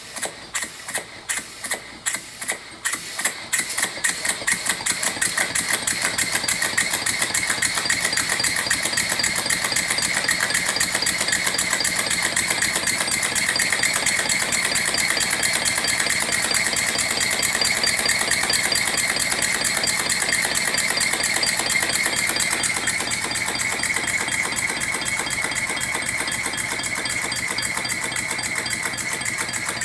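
American Model Quarter Horse single-cylinder horizontal steam engine running on compressed air. Its exhaust puffs start slow and separate, quicken over the first few seconds, then settle into a fast, steady beat as the engine runs up to speed.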